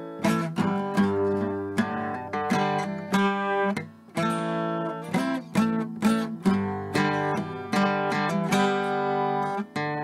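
Background music: acoustic guitar played with plucked and strummed notes.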